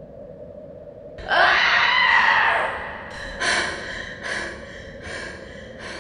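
A person screams once, long and falling in pitch, about a second in, followed by four shorter repeats that grow fainter.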